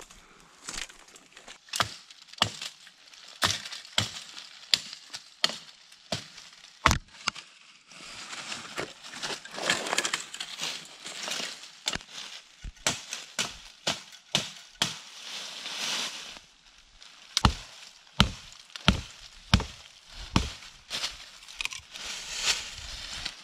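Repeated sharp chopping blows into a dead wooden branch, irregular at first and later coming about two a second, with spells of rustling dry leaves about a third of the way in and again about two-thirds in.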